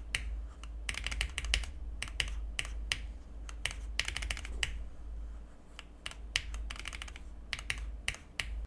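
Modded Fantech MAXFIT61 mechanical keyboard with lubed Outemu red switches, foam and tape mods and Cherry-profile keycaps, a few keys tapped rapidly in fast rhythmic runs of keystrokes. The keystrokes thin out briefly about five seconds in.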